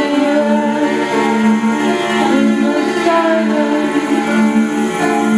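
Cello bowing long held notes with a few sliding pitch changes, over the rest of a small band in a slow instrumental passage.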